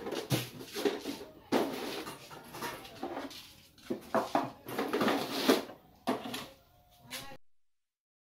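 Metal bread tins clattering and scraping against each other as they are handled in a plastic basket: irregular knocks and rattles that cut off suddenly about seven seconds in.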